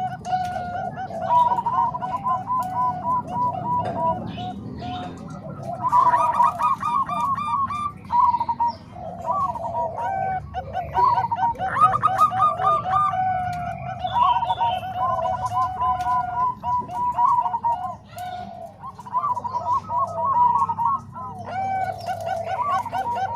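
Zebra doves (perkutut) cooing continuously in quick, repeated phrases of short notes. Phrases at two pitches overlap, with a faint low hum underneath.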